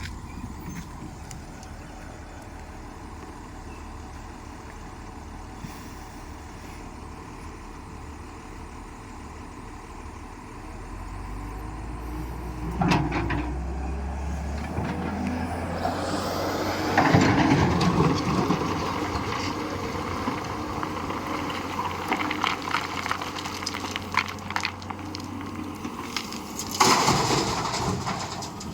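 Excavator's diesel engine running steadily, then working harder about ten seconds in. Noisy bursts of scraping and knocking follow, loudest around two-thirds of the way through and again near the end.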